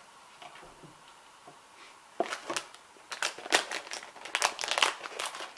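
Plastic blind-bag packaging being torn open and crinkled by hand, a rapid run of sharp crackles starting about two seconds in.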